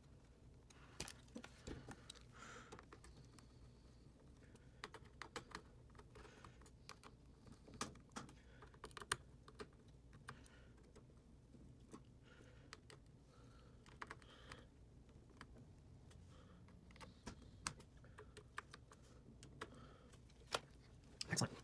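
Scattered small clicks and ticks of a screwdriver turning the mounting screws on a graphics card cooler's metal X-bracket, the screws being tightened down in a star pattern, with a louder knock near the end.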